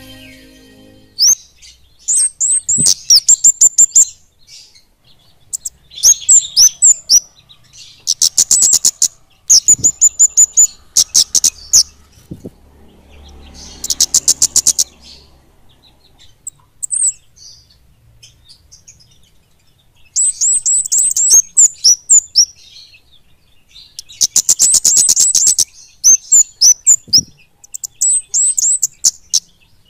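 Flowerpeckers (kemade) singing: bouts of very high, rapid ticking trills mixed with thin twittering notes, repeating every few seconds.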